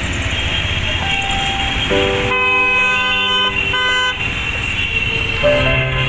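A vehicle horn honks: one long blast about two seconds in, a brief break, then a short second toot, over steady road and engine noise.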